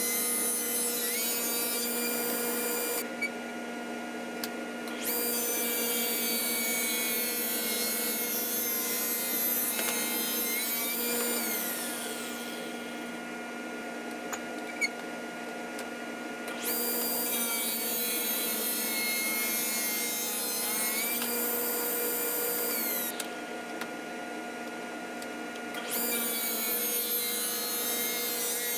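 An electric power tool running steadily with a constant hum. Its high-pitched hiss drops away three times, for a few seconds each.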